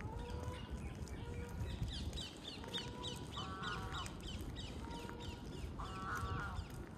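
Waterfowl on a park lake calling: two short honks about three seconds apart, while a small bird gives a rapid run of high, falling chirps, about four a second, over a low background rumble.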